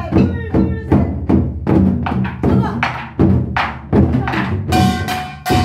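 Nanta drumming on a moduembuk, a set of Korean barrel drums: sharp strikes about twice a second, played in time with a backing music track that carries a melody.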